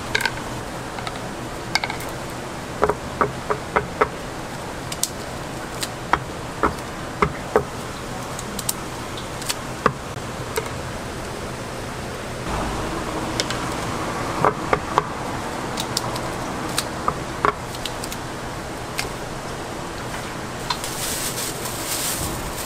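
Wooden skewers clicking and tapping as they are handled on a wooden board, sharp irregular clicks over a steady background hiss. Near the end a plastic bag crinkles as it is opened.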